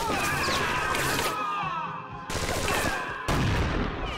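Movie gunfight sound effects: a dense run of gunfire and bullet hits with high whines sliding in pitch over it, breaking off briefly about two seconds in and again a second later.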